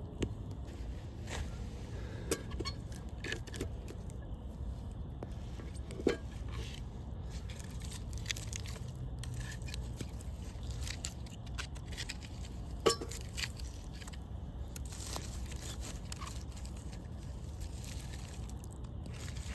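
Campfire crackling, with scattered sharp pops from the burning wood and two louder pops about six and thirteen seconds in, over a steady low rumble.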